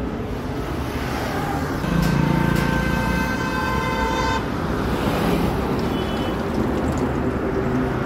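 A vehicle horn sounds once, a steady held tone of about two and a half seconds, over constant traffic noise.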